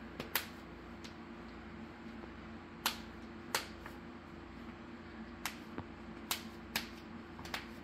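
Snap fasteners on a fabric baby poncho being pressed shut one by one. About ten sharp clicks come at irregular intervals as the middle section is closed.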